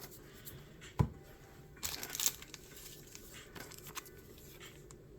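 Handling of Pokémon trading-card packaging: a sharp click about a second in, then a short crinkling, tearing rustle about two seconds in, with faint ticks of cards being handled.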